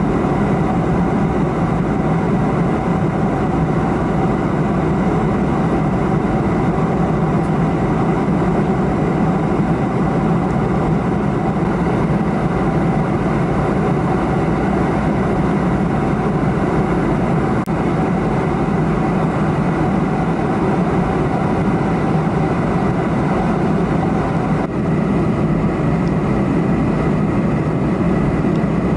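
Cabin noise of a Boeing 747-400 in cruise: a steady, loud rush of airflow and engine drone with a faint high steady whine over it.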